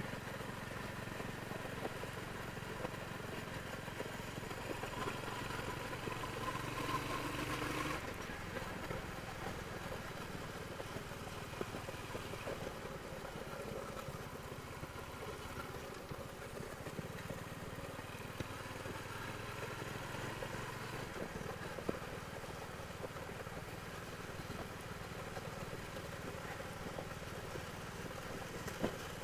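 Royal Enfield Hunter 350's single-cylinder engine running through its stock exhaust; its pitch rises for a few seconds, then drops suddenly about eight seconds in and carries on at a steady lower note.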